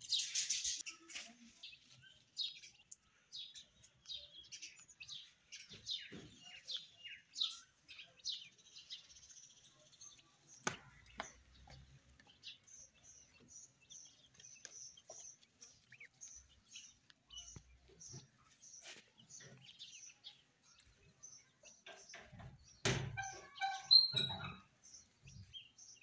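Ducklings peeping: a run of short, high peeps, about two or three a second in places, with a louder, fuller burst of sound near the end.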